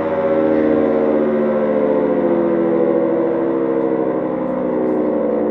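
Freshly restored Carter-type air raid siren, its motor run on a variable-frequency drive, sounding a chord of several tones that slide slowly down in pitch as the rotor slows from full speed.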